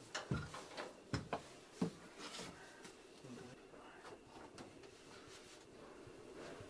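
Handling noise from a shop-window mannequin being moved and undressed: a few light knocks in the first two seconds, then faint rustling and shuffling.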